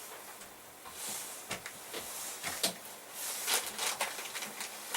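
Gear being handled and set down: a scatter of light knocks and clicks with some rustling, about a dozen small impacts spread across the few seconds.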